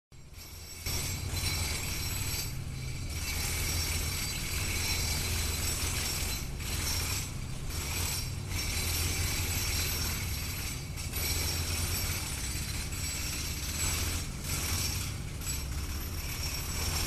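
Construction machinery running with a steady mechanical rattle over a low hum, dropping out briefly several times.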